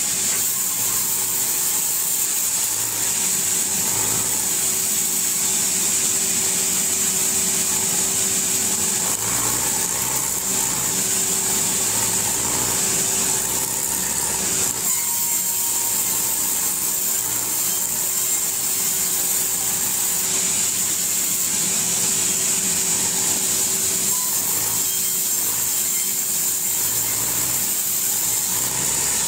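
Powered sawmill saw bench running without a break while logs and planks are ripped lengthwise into boards. Its steady motor hum sits under a constant high hiss of blade and wood.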